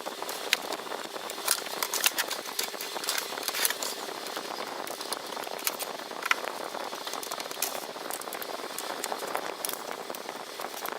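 Irregular clicks and taps over a steady hiss: hands and small tools working on the plastic parts of a clock radio as it is taken apart.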